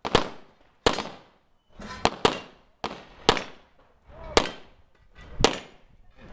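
9mm Glock pistol firing about eight shots at irregular intervals, mostly about a second apart, with two in quick succession about two seconds in; each shot has a short fading tail.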